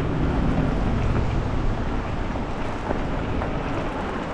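Steady rumbling noise of an e-bike rolling along a rough off-road trail, tyres running over the uneven surface.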